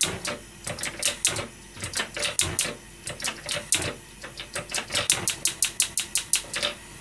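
Gas stove burner's igniter clicking over and over as the control is held, a rapid run of sharp ticks that quickens in the second half and stops shortly before the end, with the burner lighting under the pan.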